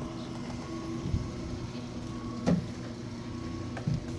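Three short knocks and clicks from the boat's battery switch being turned on, the middle one the loudest, over a steady low hum.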